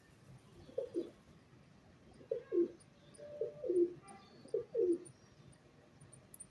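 Pigeon cooing on a rooftop: four low, falling coo phrases about a second apart, the middle ones the loudest.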